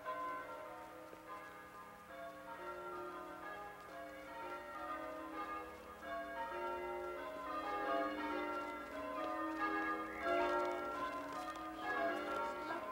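Church bells ringing a peal, many bells at different pitches striking one after another and overlapping as they fade.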